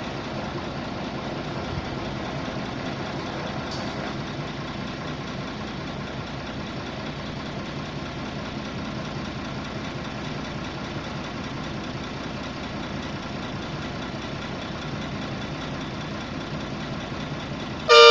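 Engine of a 655 CFM portable air compressor running steadily. Near the end comes a short, loud horn blast.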